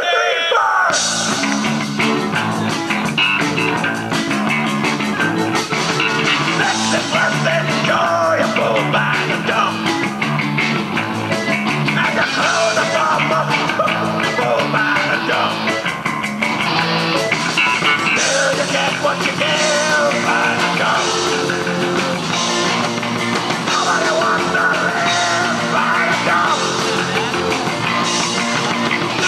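Live rock band, with electric guitars, bass and drums, coming in together about a second in and playing a loud, driving song.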